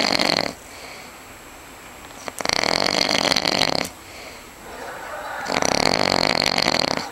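A man snoring very loudly: harsh rasping snores about every three seconds, each lasting about a second and a half, with quieter breathing between, sounding almost as if he is suffocating.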